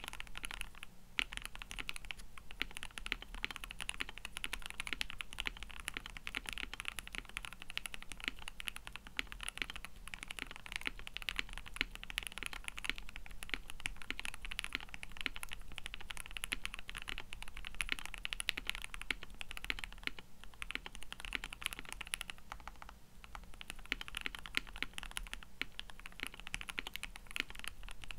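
Steady, fast typing on a KBD67 Lite gasket-mount mechanical keyboard with lubed 67g Everglide Water King linear switches, a polycarbonate plate and ePBT 9009 keycaps: a dense, unbroken run of keystroke clacks, easing off briefly about three quarters of the way through.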